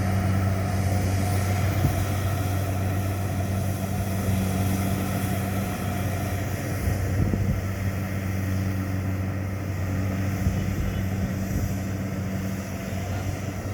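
Engines of rice-harvesting machinery running steadily at constant speed, an even low hum: the tracked rice-hauling cart working alongside a Kubota DC70 combine harvester.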